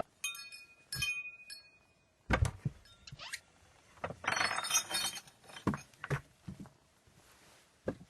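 A few light ringing clinks, as of glass or metal lightly struck, then several separate knocks and a brief scraping rustle.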